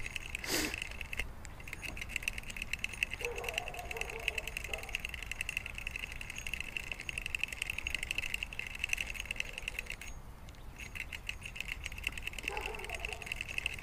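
Ultralight spinning reel being cranked steadily, its gears giving a fast, even whirring tick as dental floss winds onto the spool. The cranking stops for about a second near the end, then starts again.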